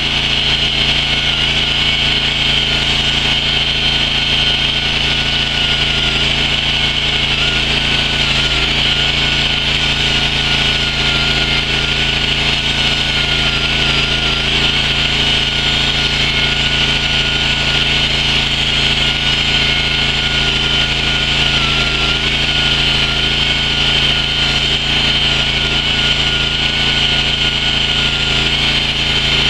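Chainsaw cutting down into a block of stone, running steadily at full speed with no let-up.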